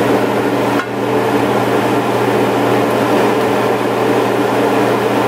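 Pot of ground-pork and potato stew simmering on the stove under a steady mechanical hum, dipping briefly about a second in.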